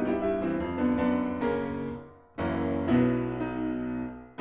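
Steinway grand piano played in chords and melody, the notes ringing on; about halfway through the sound dies away almost to nothing before a new chord starts, and it dips again just before the end.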